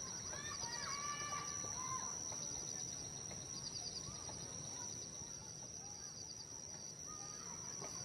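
Birds calling, with several arching whistled calls in the first two seconds and scattered chirps after, over a steady high-pitched drone and repeated short trills.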